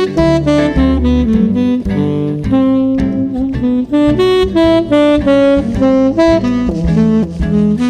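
Jazz ballad playing as background music: an instrumental passage in which a sustained melody line moves note by note over a low bass line, with no singing.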